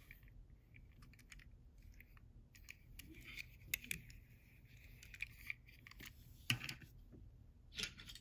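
Faint clicks and light taps of a small die-cast metal toy truck being turned over and handled in the fingers, with a sharper tap about six and a half seconds in.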